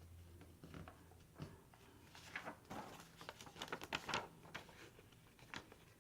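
A sheet of paper rustling as it is folded and creased by hand: a run of short, faint crackles, thickest in the middle.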